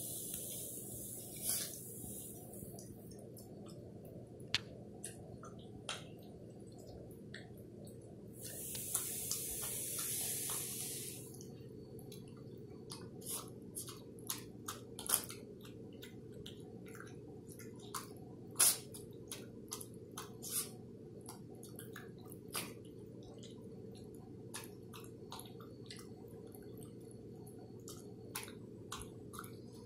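Small dog eating chunky wet food from a bowl: irregular wet smacking and clicking of chewing and licking over a steady low hum. Two stretches of soft hiss, one at the start and a longer one about nine seconds in.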